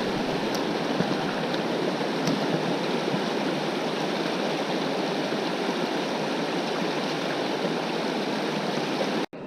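River water rushing steadily, a constant loud wash of current, cut off abruptly near the end.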